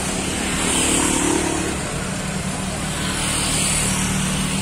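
Road traffic at close range: car and motorcycle engines running in a slow-moving jam, a steady low hum under a wash of engine and road noise.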